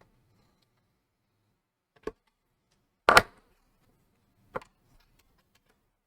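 Small computer screws being handled and tried in a mounting bracket's screw holes: three sharp clicks and taps, the loudest about three seconds in, with faint ticks between.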